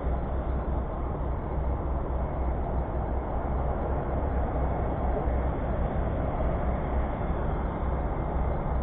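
A bass boat's outboard motor running at idle speed, a steady low rumble.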